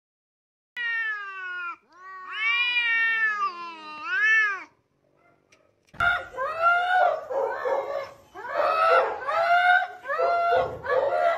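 Two cats yowling at each other in a standoff, with long wavering cries that rise and fall in pitch. About six seconds in, a Siberian husky takes over with a string of repeated rising-and-falling howling whines.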